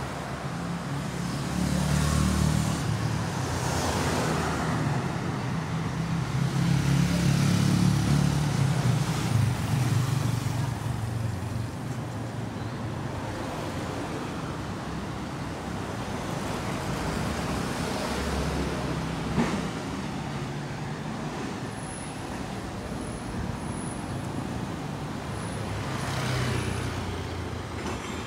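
Road traffic on a city street, with cars, motorcycles and a truck driving past. The engine rumble swells and fades as vehicles pass, loudest in the first ten seconds.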